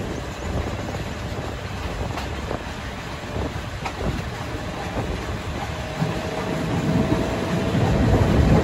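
Moving passenger train heard from an open carriage window: a steady rumble of the wheels on the track with wind noise and a few faint clicks. A faint steady whine joins about six seconds in, and the rumble grows louder near the end.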